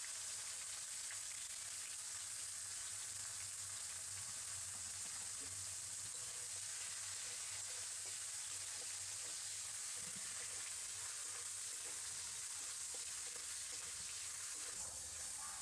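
Chopped tomatoes frying in hot mustard oil in a kadai: a steady sizzle, with a metal spatula stirring them.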